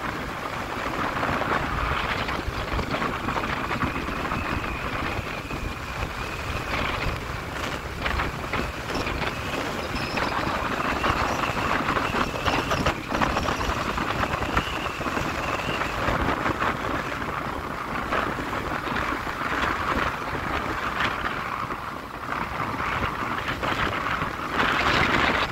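Wind and road noise from a vehicle moving along a highway: a steady rushing with wind buffeting the microphone, and a faint high whine through the middle.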